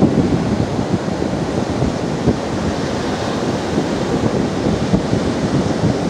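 Wind buffeting the microphone in a steady, heavy rumble, over surf washing onto the beach.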